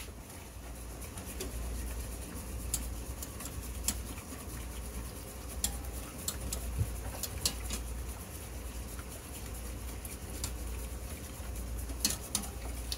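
A whisk stirring sauce in a metal saucepan, with scattered light clicks and scrapes of the whisk against the pan over a steady low hum.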